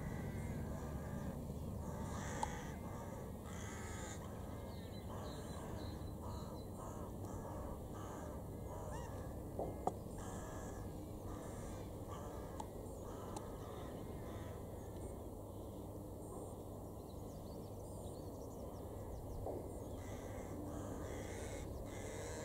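Crows cawing now and then over a steady low background rumble.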